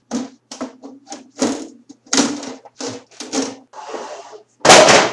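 Metal side panel of a desktop computer case being worked loose: a run of short scrapes and rattles, then one much louder burst near the end as it comes off.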